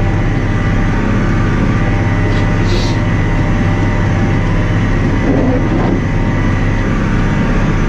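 Massey Ferguson 6480 tractor engine running steadily at working speed, heard from inside the cab.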